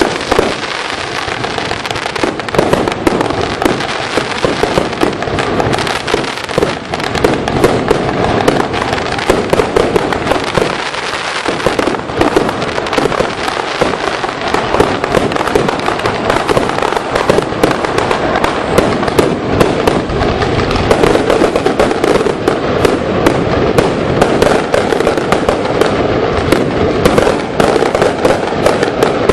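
Fireworks display: a rapid, unbroken barrage of bangs and crackling shells.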